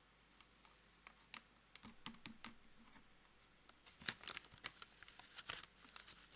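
Packaging bags crinkling and crackling as they are handled, in scattered soft clicks that grow busier and louder about four seconds in.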